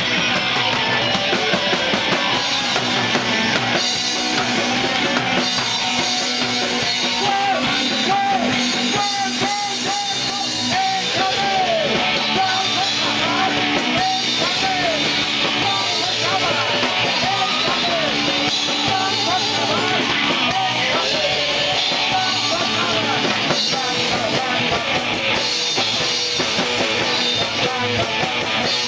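Live punk rock band playing: drum kit, bass guitar and electric guitar, steady throughout, with a wavering melody line over the top in the middle.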